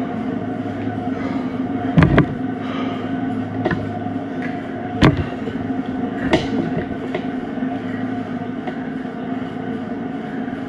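Stationary exercise bike whirring steadily as it is pedalled, with a few sharp knocks between about two and six seconds in.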